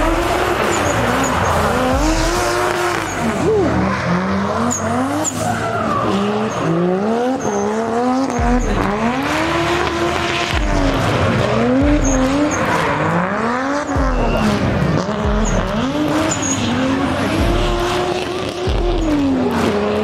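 Drift cars' engines revving up and down again and again through a drift run, the pitch rising and falling every second or two, with tyre squeal from the sliding tyres.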